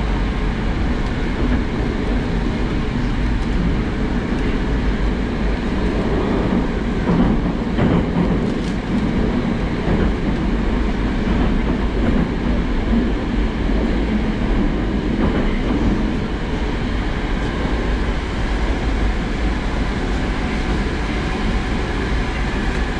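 Interior running noise of a Moscow Metro 81-765/766/767 train in a tunnel: a steady, loud rumble of wheels and traction equipment, broken by a few sharp clicks. The noise eases a little in the last seconds as the train comes into a station.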